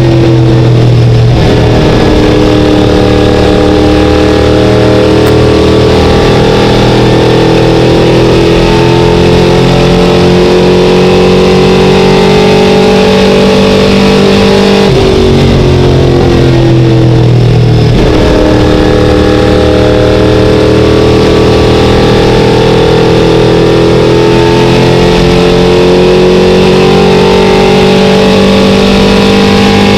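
ACT Late Model stock car's V8 engine at racing speed, heard from inside the cockpit. Its pitch climbs slowly along the straights and drops sharply at the start and again about halfway through as the car slows for the turns.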